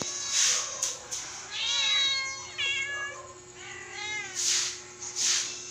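Domestic cat meowing three times, about a second apart, begging to be fed, with short noisy swishes between the meows.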